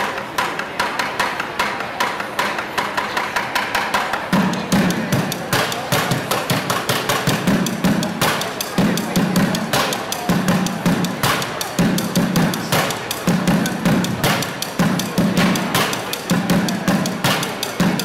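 Bucket drumming: drumsticks beating a set of upturned plastic buckets in a fast, dense rhythm. About four seconds in, deep bass strokes on the buckets join in, in short clusters about once a second.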